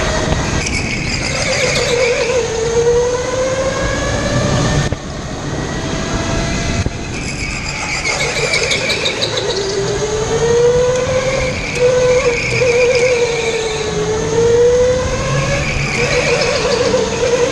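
Electric go-kart's motor whining, its pitch rising and falling as the kart speeds up and slows through the corners, with a brief drop in level about five seconds in, over the rumble of the kart on the track.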